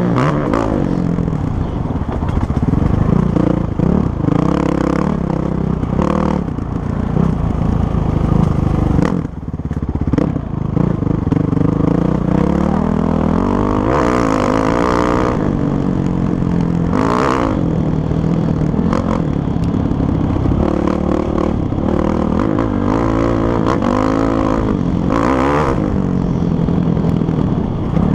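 Kawasaki KLX450R single-cylinder four-stroke dirt bike engine heard from the rider's helmet while riding a motocross track, its revs rising and falling over and over as the rider works the throttle. A few short bursts of hiss come through along the way.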